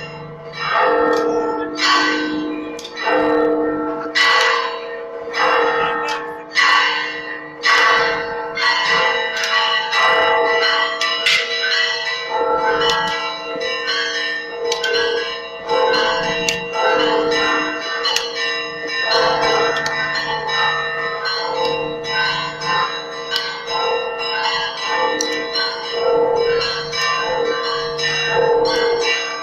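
Church bells of the Church of the Holy Sepulchre ringing for the evening service: several bells struck in quick succession, their tones overlapping. Clear single strikes come about every second for the first several seconds, then the strikes grow denser and blend into a continuous peal.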